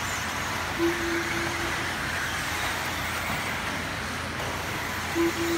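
Several 1/10-scale electric RC buggies with 17.5-turn brushless motors racing around a dirt track, a steady mix of motor whine and tyre noise. A steady held tone comes in about a second in and again near the end.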